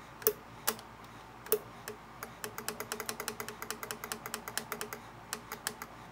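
Light metal clicks from a vintage sewing machine's feed-dog mechanism being worked by hand: a few single clicks, then a quick run of about six a second for about three seconds, then a few more. The mechanism, freed of gummed old oil with heat and fresh oil, now moves and springs back.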